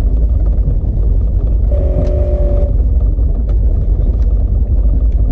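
The winch truck's engine running in a steady, heavy low rumble, picked up by a camera mounted on its bonnet. The truck is a Nissan Patrol fitted with an LS1 V8. A brief pitched sound of a couple of steady tones cuts in for about a second, about two seconds in.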